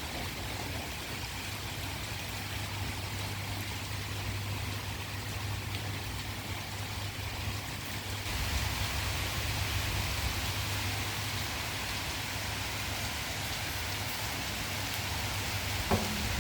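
Steady rainfall, an even hiss of falling rain. About halfway through it grows louder and brighter, and a brief knock sounds just before the end.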